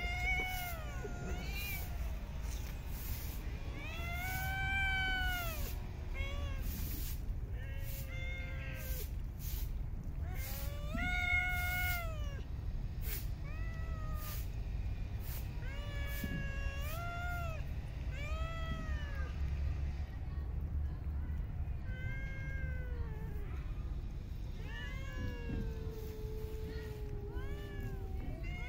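Cats meowing over and over, short rising-and-falling meows every second or two, with one longer, drawn-out falling meow near the end. A steady low rumble runs underneath.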